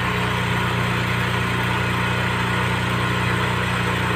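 Heavy diesel engine idling steadily, a low even hum.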